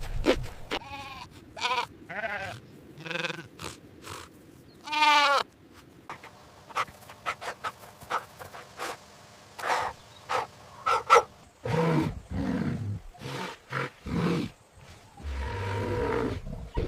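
Sheep bleating several times, each call quavering. Lower, rougher animal calls come in near the end.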